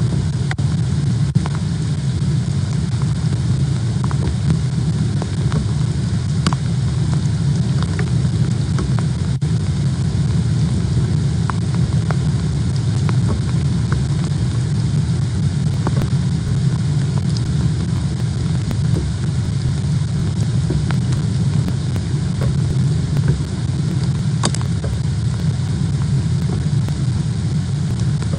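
Hailstorm at an osprey nest: a steady low rumble with scattered sharp ticks of hailstones striking the nest and the camera.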